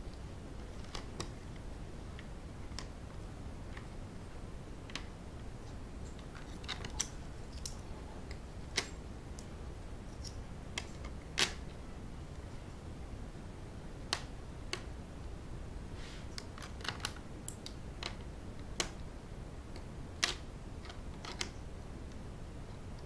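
Irregular small clicks and taps as cut-out circle-sector pieces are picked off and set against a display board one at a time, a few sharper clicks among them. A steady low room noise runs underneath.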